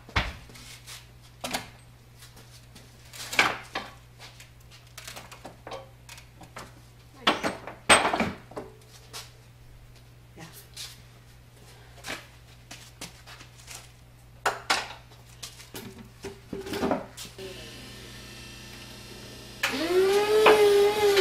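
Heavy cast-iron parts of an old Chandler & Price platen press knocking and clanking against each other and the wooden pallet as they are shifted, in scattered strikes, loudest around three and eight seconds in. Near the end a motor starts up with a pitched whine that grows louder and wavers in pitch.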